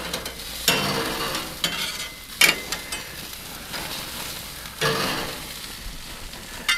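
Beef burger patties sizzling on a gas grill's stainless steel grate as they are flipped with metal spatulas, with several sudden scrapes and clinks of the spatulas against the grate.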